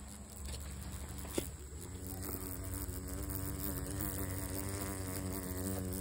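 Cicada killer wasp's wings buzzing steadily as it strains to lift a paralysed cicada that is almost too heavy for it to fly with.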